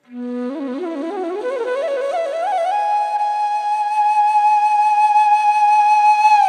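Indian classical bansuri flute music. It starts abruptly on a low note, climbs in wavering, ornamented steps, then holds one long, steady high note from about three seconds in.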